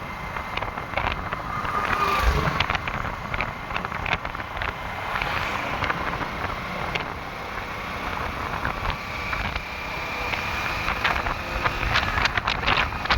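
Outdoor construction-site noise: a steady machine or engine rumble with frequent short knocks and clanks, and wind buffeting the microphone.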